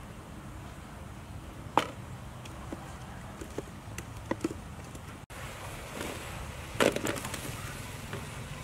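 Wood fire in a clay stove with scattered sharp pops and knocks as firewood is pushed in, the loudest about two seconds in. Near the end, meatballs and chunks are tipped from a plate into a wok with a short clatter and splash.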